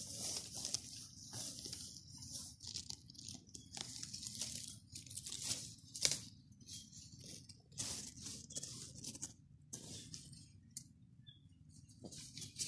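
Dry leaves and grass stems rustling and crackling close to the microphone in irregular bursts, over a faint low rumble.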